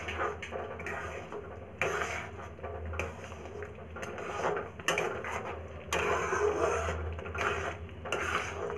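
Metal spatula stirring and scraping thickening semolina upma around a kadhai, a scrape or squelch roughly every second, over a steady low hum.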